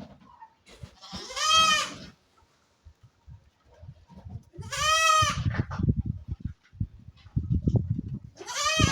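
Goats bleating: three loud, high-pitched bleats about three seconds apart, each about a second long and rising then falling in pitch. In between there is low scuffling and knocking.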